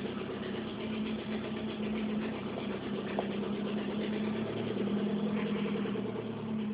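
1988 Saab 900 Turbo's turbocharged four-cylinder engine idling steadily after a hard cold-morning start, in a car that keeps stalling; the owner says the valves are noisy.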